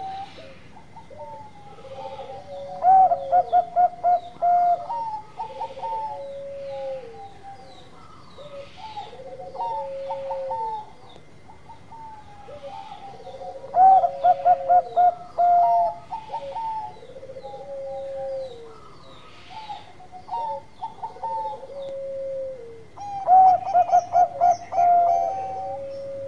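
Zebra dove of the Bangkok perkutut strain singing its cooing song. Three times, a loud quick run of about eight short staccato notes is followed by a string of softer, lower coos, each ending in a falling note.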